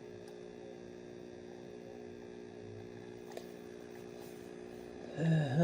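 Steady electrical hum made of several even tones, with a single faint click about three and a half seconds in.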